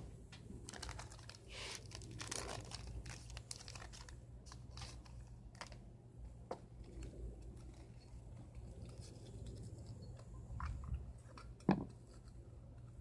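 Rustling and small clicks of objects being handled on a cloth-covered table, with a low steady hum underneath. One sharper knock comes near the end as the wooden bowl on the glass jar is handled.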